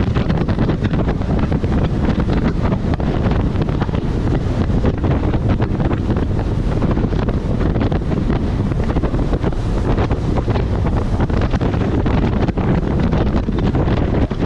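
Strong wind buffeting the microphone aboard a Buster Magnum aluminium motorboat under way in choppy waves, a loud steady rush of wind and water with constant gusty crackle.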